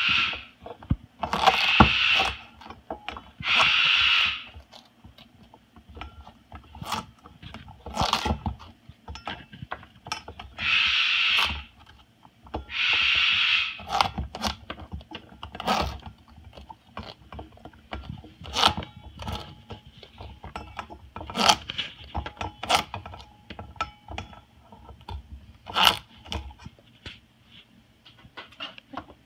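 Moluccan cockatoo's bill biting, crunching and scraping raw squash in a stainless steel bowl: irregular sharp clicks and crunches, with four longer rasps of about a second each in two pairs.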